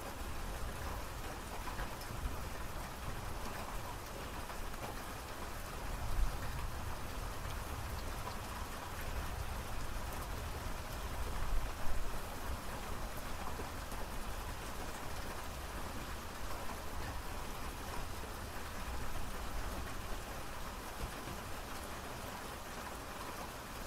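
Steady rain falling and pattering on surfaces, an even hiss of many drops. A low rumble swells briefly about six seconds in and again, louder, about twelve seconds in.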